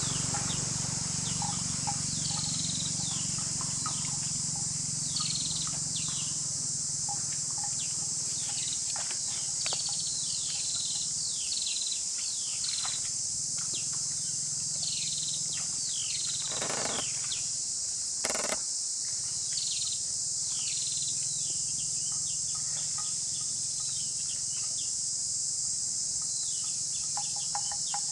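Steady high-pitched insect drone, with many short falling bird chirps repeating throughout. Two brief noisy sounds come about two-thirds of the way through.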